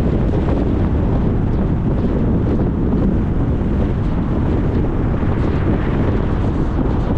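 Steady road noise of a car driving, tyre and wind noise blending into an even hiss that is heaviest in the low end, with no changes or separate events.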